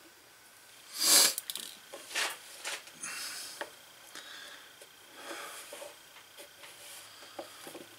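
Dried glue being scratched out with a pointed tool and rubbed off the leather of an old holster with fingertips: soft, irregular scratching and rubbing, with one short, louder rasp about a second in.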